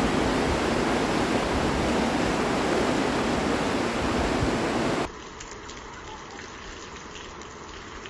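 Floodwater rushing down a street in a torrent, a loud, dense, steady rush. About five seconds in it drops abruptly to a much quieter steady noise of water.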